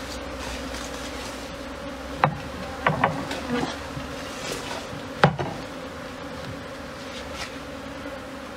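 Swarm of Africanized honeybees buzzing in a steady hum around a wooden hive box. A few sharp wooden knocks sound as the box is handled and set down, the loudest about five seconds in.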